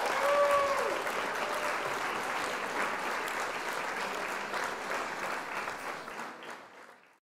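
Applause from a crowd, many hands clapping in a dense patter that holds steady and then fades away near the end.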